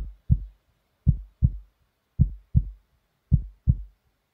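Heartbeat sound effect: four slow, low double thumps (lub-dub), one pair a little more than once a second, with silence between.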